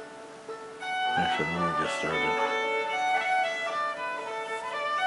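Music with held, string-like notes playing over the auditorium speakers during the pre-show slides, with a brief voice in it about a second and a half in.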